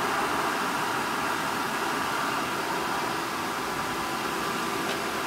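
Hayward variable-speed pool pump running at high speed while it primes: a steady motor hum with a constant whine over the rush of air and water churning through the strainer pot as it pulls water into the lines.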